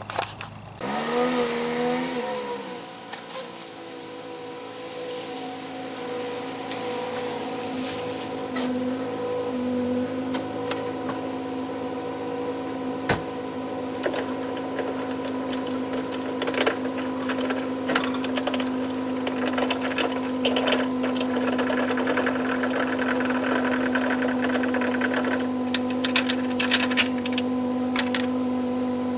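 A small motor running steadily, giving a pitched hum that dips slightly in pitch early on, with scattered clicks and rattles over it.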